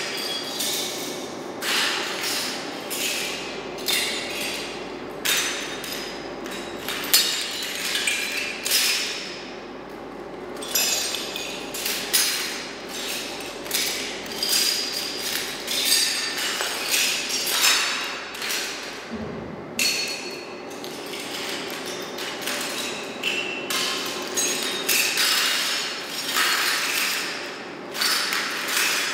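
Footsteps on a floor strewn with spent brass cartridge cases: each step crunches through the casings with a burst of metallic clinking, the steps coming slowly and unevenly with a couple of short pauses.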